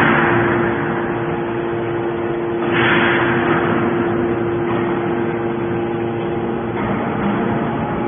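Hydraulic scrap-metal baler running while it compacts metal shavings into a block: a steady machine hum, with a rush of hiss about three seconds in and a weaker one near the end.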